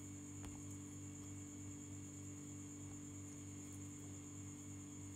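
Steady electrical hum with a faint high whine and hiss: background noise of the recording.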